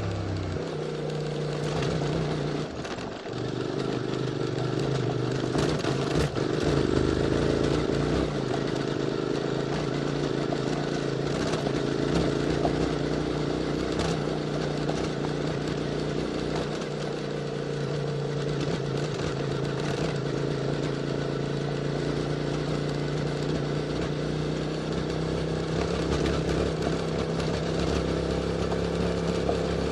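QJ Motors SVT650X motorcycle with an Arrow slip-on exhaust, running steadily under light throttle while riding, with a brief dip in revs about three seconds in. A few sharp knocks and clatter are heard over the engine.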